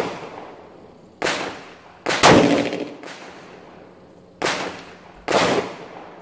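Smith & Wesson Governor revolver firing Hornady Critical Defense .410 shotshells: four loud shots in two pairs, the shots in each pair under a second apart, each report ringing out briefly.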